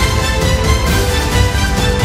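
Background music with held notes over a strong bass.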